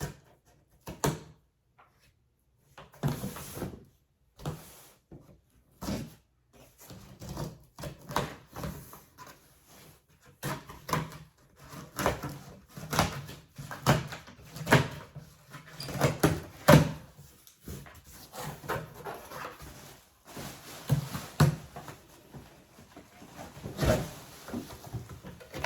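A package being opened and its contents handled: irregular knocks, scrapes and rustles of cardboard and packing, coming thicker after about ten seconds.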